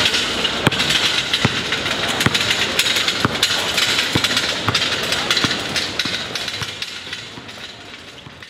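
City street ambience with passing traffic, with a soft knock repeating about once a second; it fades out over the last few seconds.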